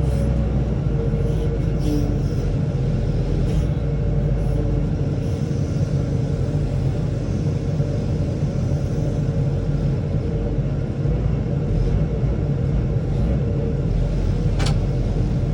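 John Deere 544J wheel loader's diesel engine running steadily with a low, even rumble, and one sharp click near the end.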